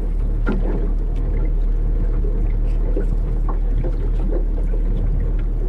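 A loud, steady low rumble on the boat-mounted camera's microphone, with the anglers' voices faint beneath it.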